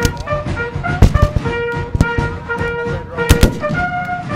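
Black-powder muskets firing scattered shots from a firing line: sharp cracks about a second in and a close pair past three seconds, over a wind instrument playing held notes.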